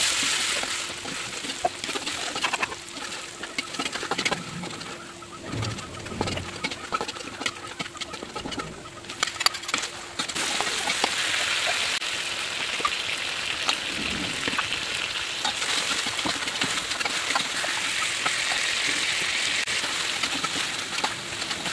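Oil sizzling in a metal wok as ground chili-garlic paste fries, with a metal spatula scraping and tapping the pan. About ten seconds in the sizzle gets louder and stays steady as chopped tomatoes cook in the oil.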